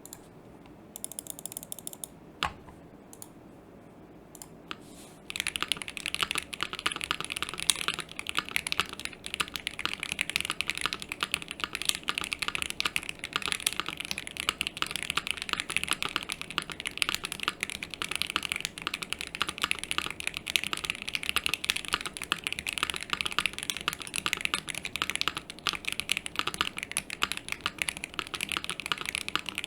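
Fast, continuous typing on a custom mechanical keyboard: an ai03 Vega with an aluminium plate, HMX Snow Crash switches and GMK keycaps, its keys clacking as they bottom out. A few scattered key clicks come first, and the steady typing starts about five seconds in.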